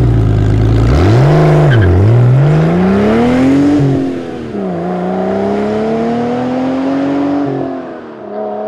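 A car engine accelerating hard through the gears. After a quick rev blip about a second in, the pitch climbs steadily and falls back at each upshift, near four and again near eight seconds in.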